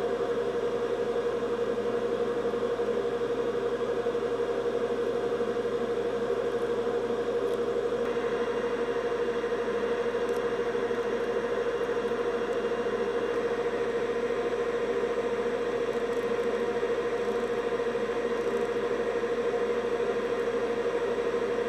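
Steady machine whir with a constant mid-pitched hum, no clicks or rhythm; it turns slightly brighter about eight seconds in.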